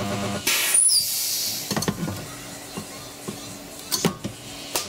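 Welding arc on sheet steel, crackling in short bursts as tack welds are laid along a car's inner sill panel, with sharp clicks between the bursts. Music plays faintly underneath.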